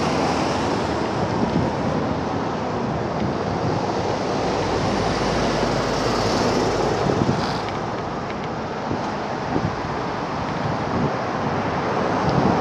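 Steady wind noise on a handheld camera's microphone while cycling along a street.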